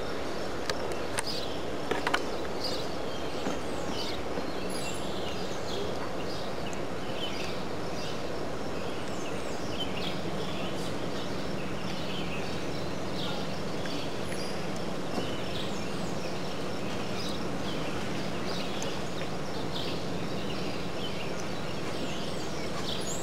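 Steady outdoor background noise with many short, high chirps and calls scattered throughout, a few clicks in the first two seconds, and a faint low hum that joins about ten seconds in.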